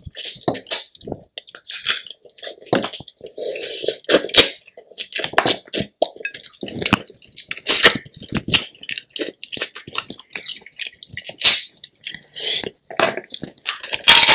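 Close-miked chewing and slurping of crab meat and crab fat, with wet mouth sounds and irregular sharp clicks throughout.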